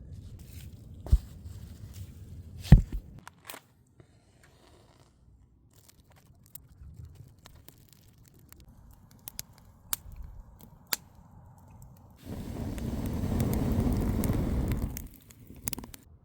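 Wood fire crackling and popping, with two sharper cracks in the first three seconds, and a steady rushing noise lasting about three seconds near the end.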